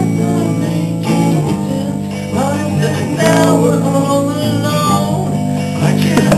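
A song played on guitar, with a voice singing over the held chords.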